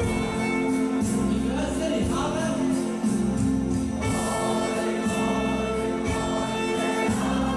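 Music with singing voices over a sustained bass and a steady beat.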